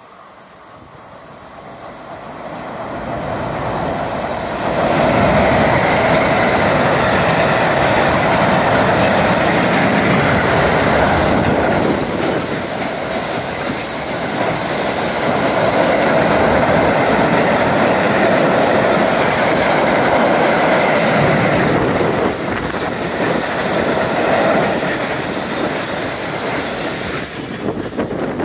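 A freight train of double-deck car-carrier wagons running past close by on a steel railway bridge. The sound builds over the first five seconds as it approaches, stays loud and steady while the wagons go by, and drops away quickly near the end.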